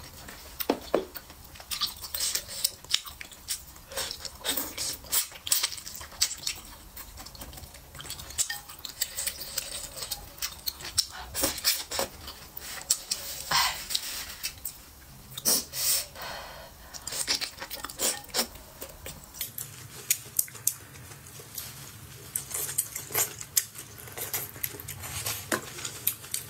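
Close-miked eating: wooden chopsticks clicking and scraping against a ceramic bowl, with noodles and broth being slurped and chewed, in a quick, irregular run of clicks and mouth sounds.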